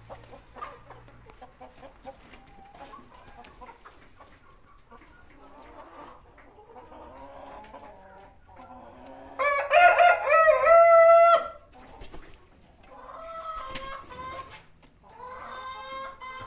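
Chickens clucking softly, then a loud crow lasting about two seconds around ten seconds in, followed by two shorter, quieter calls.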